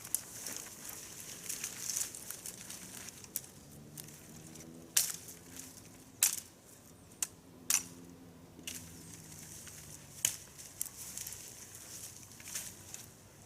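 Dry leaves and twigs crunching and crackling, with a scatter of sharp snaps, the loudest a few seconds apart in the middle.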